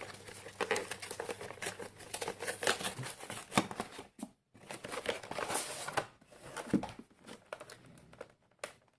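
Tight plastic shrink wrap on a cardboard collection box crinkling and crackling as it is pulled and torn at, in irregular bursts with a brief pause about four seconds in.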